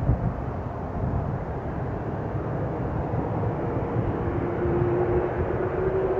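Distant Airbus A330-300 jet engines running as the aircraft turns on the runway: a steady low rumble, with a steady engine tone coming in about four seconds in and rising slightly.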